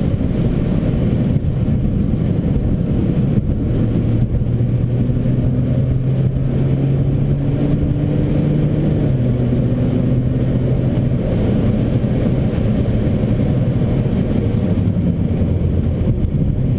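Nissan GT-R's twin-turbo V6 heard from inside the cabin while driving on a wet track, over a steady rumble of road and tyre noise. The engine note climbs for several seconds, then drops back about nine seconds in and carries on more evenly.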